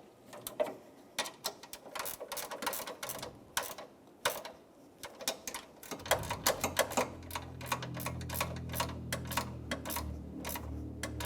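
Ratchet wrench clicking in quick irregular runs as the hood latch's 10 mm mounting bolts are tightened. From about six seconds in, a low steady hum joins underneath.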